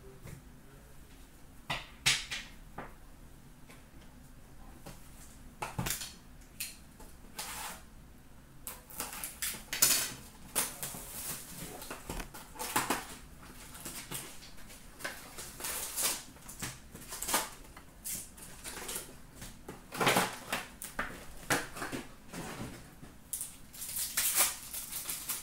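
A trading card box being opened and its packs torn open by hand: a run of sharp cardboard taps, scrapes and wrapper crinkles, sparse at first and busier from about nine seconds in.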